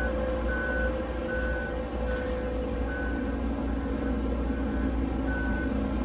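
Heavy machine's diesel engine running with its back-up alarm beeping, a high beep repeating about once a second over the engine drone, as the machine reverses.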